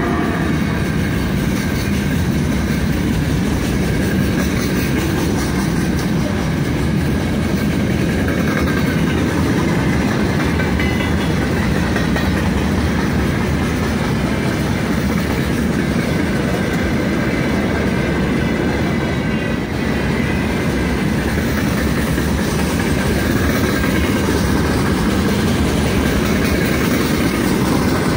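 Long freight train of open gondola wagons rolling past close by: the steady noise of many steel wheels running on the rails, just after the rear section of a 3ES5K electric locomotive has passed.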